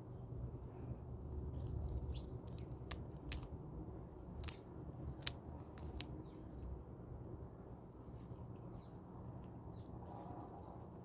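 Chipmunk handling and biting into in-shell peanuts: a few sharp cracks of shell a few seconds in, then faint crackly nibbling, over a steady low outdoor background.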